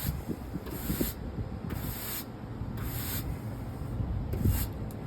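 Brush strokes scrubbing matted dirt off an air conditioner's condenser coil fins, a hissing stroke about once a second, four in all.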